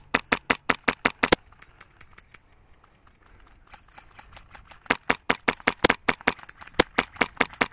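Airsoft rifle shots, sharp cracks fired in quick semi-automatic strings of about six a second: a loud string in the first second and a half, fainter scattered shots in the middle, then another loud string from about five seconds in.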